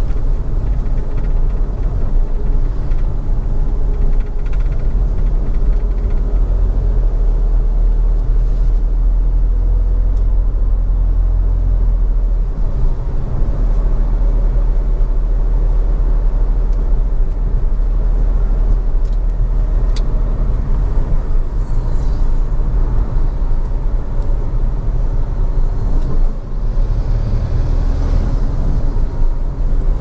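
Car driving, a steady low rumble of engine and road noise.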